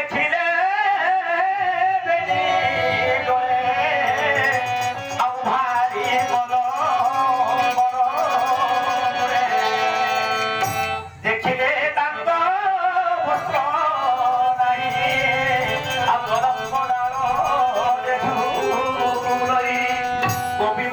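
Male voice singing a devotional song, accompanied by tabla and the held notes of a harmonium. There is a short break in the music about halfway through.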